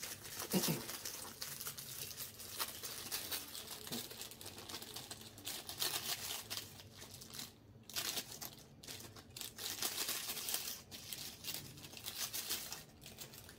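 Clear plastic accessory bag crinkling in irregular crackles as it is handled and pulled open.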